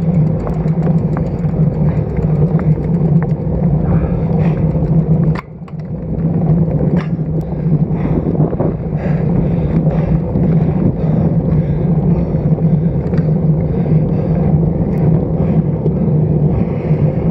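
Wind and road noise on a bicycle stem-mounted action camera while riding: a loud, steady rush with small knocks from the road, dipping briefly about five seconds in.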